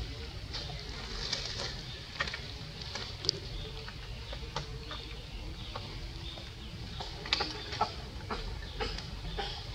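Jungle ambience: a steady low rumble with faint high chirps of birds or insects, and scattered sharp clicks, a few of them louder.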